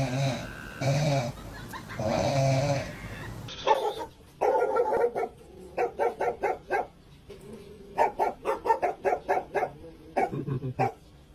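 A sleeping dog snoring in slow, even pulses. Then a dog barks in two rapid runs of short, sharp barks.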